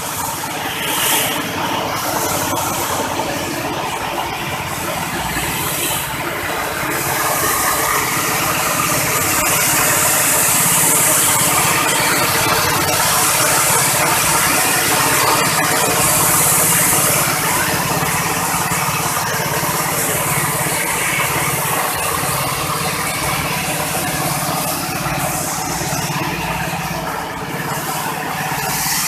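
Coffee huller driven by a small petrol engine, running steadily while it hulls dry parchment coffee beans: a constant engine drone with an even hiss of beans and husks passing through the machine.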